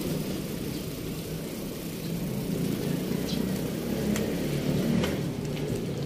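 A motor vehicle engine running close by, a low steady sound that grows louder about halfway through and eases near the end.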